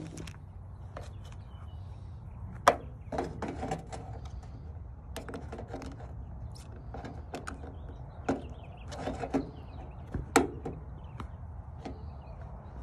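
A small flat pull-tab tin can handled and knocked on a ridged metal bench top: a run of sharp clicks and metallic taps, the loudest about 2.5 s and 10 s in, over a low steady rumble.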